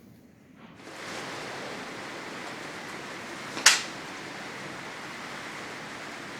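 Steady hiss of rain, starting about a second in, with one sharp, loud crack a little past halfway.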